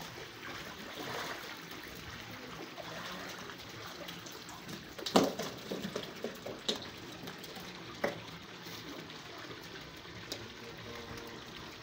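Water splashing and trickling in a shallow catfish pond as a seine net full of catfish is hauled through it. A sharp knock about five seconds in is the loudest sound, followed by a few smaller knocks.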